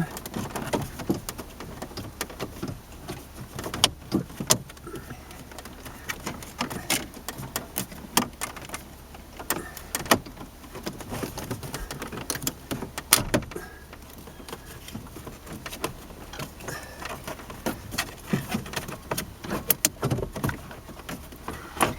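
Tight-fitting plastic upper steering column cover being worked loose by hand, with irregular clicks, knocks and creaks of the plastic.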